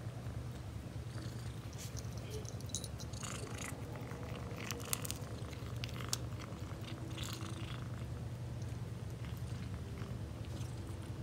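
Calico cat purring steadily while eating, with bursts of crunchy chewing and small clicks from about three to seven seconds in.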